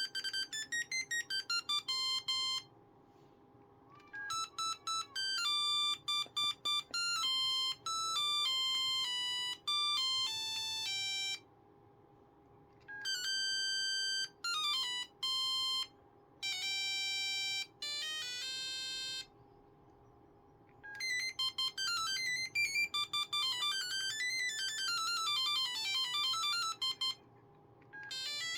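Ericsson T20s mobile phone playing its built-in monophonic ringtones one after another: short beeping single-note melodies with brief pauses between them, including quick up-and-down runs of notes near the end.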